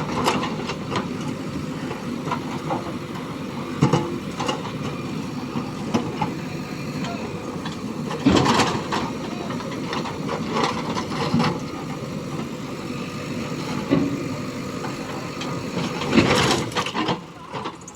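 Diesel engine of a JCB 3DX backhoe loader running steadily, with short, louder bursts every few seconds as the machine works.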